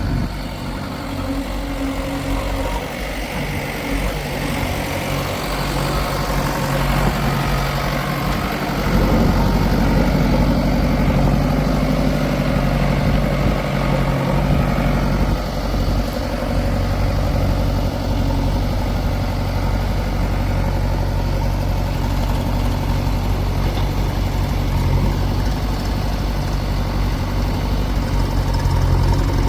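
Heavy diesel engine of a backhoe loader or tractor running steadily, getting louder about eight seconds in.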